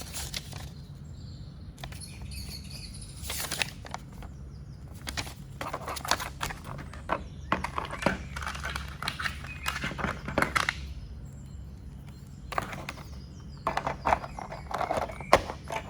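Hands handling packaging and small items: irregular rustles, clicks and taps, with a steady low hum underneath.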